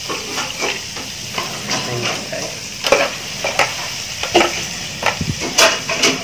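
Meat, garlic and chilli sizzling in hot oil in a frying pan, a steady frying hiss, while a utensil stirs them with irregular scrapes and taps against the pan.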